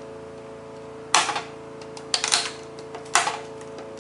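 Needle-nose pliers chipping brittle plastic out of the edge of a slim CD case: a few sharp cracks and clicks about once a second, one of them a quick double.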